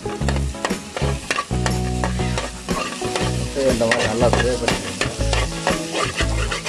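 Metal spoon scraping and stirring eggs frying in oil in a wide metal pan, with many quick clicks and scrapes of the spoon against the pan over a frying sizzle.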